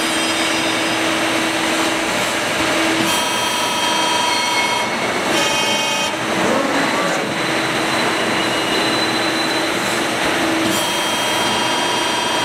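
Servo-electric CNC press brake running: a steady machine hiss and hum, with whining motor tones that come and go in short spells as the servo-driven backgauge moves.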